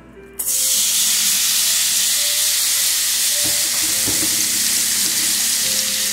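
Seasoned steak cubes dropped into a skillet of hot bacon fat: a sudden loud sizzle about half a second in, then steady frying.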